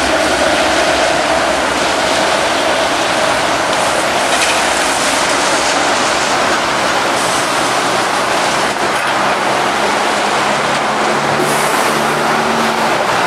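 Steady hiss of traffic on a wet road, with a TTC low-floor streetcar rolling past on its rails. A low engine hum joins in during the second half.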